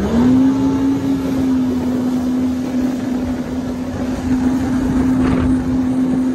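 Jet ski engine at full throttle: its pitch finishes climbing right at the start, then holds one steady high drone, with spray and wind rushing over the microphone.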